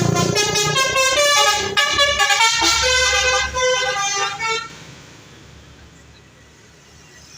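A bus's telolet horn, a set of tuned air horns, plays a quick jingle of changing notes for about four and a half seconds, then stops.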